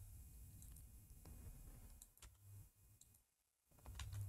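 Near silence broken by a few faint, scattered clicks of computer keyboard keys, a little busier near the end.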